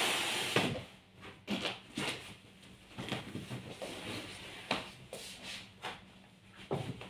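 Bed sheet fabric rustling and rubbing as it is pulled over a mattress and tucked in, with a loud swish of cloth at the start and a few short thumps.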